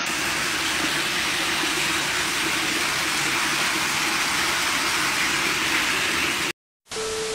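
Water rushing and splashing steadily as it floods down a concrete stairwell, a loud even hiss that cuts off suddenly about six and a half seconds in.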